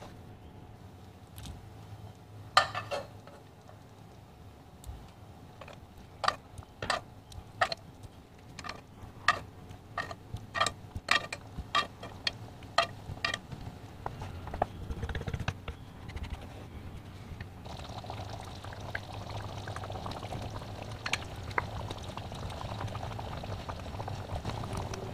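Raw chicken pieces dropped one by one into a pan of thick tomato sauce, a dozen or so sharp wet plops over about ten seconds. Then the sauce bubbles at a simmer with a steady crackling sizzle as a wooden spoon stirs it.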